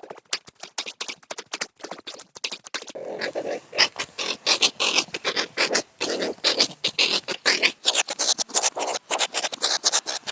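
Meerkat chirping: rapid runs of short sharp chirps, several a second, in digitally altered versions of the same recording; the sound's character changes about 3 seconds in and again about 8 seconds in as a new variation starts.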